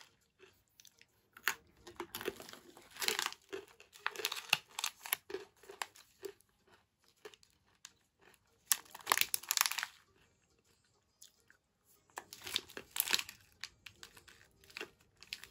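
Crinkly plastic candy packaging being handled and torn open, in several bursts of crackling, with crunchy chewing of a snack near the start.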